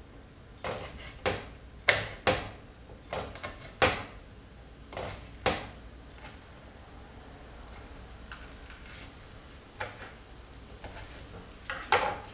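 Kitchen knife chopping green chilies on a plastic cutting board. A quick run of about nine sharp, uneven knocks comes in the first five or six seconds, then a few scattered knocks later on.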